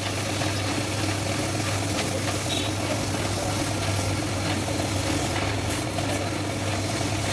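Electric arc welding on a steel tractor frame: a steady low hum with an even hiss over it and a few faint ticks.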